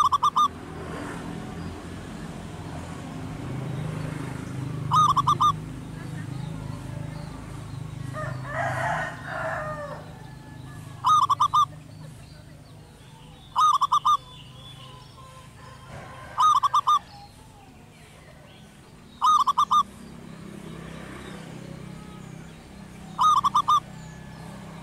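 Zebra dove singing: seven short bursts of quick staccato coos, each about half a second long, repeated every few seconds.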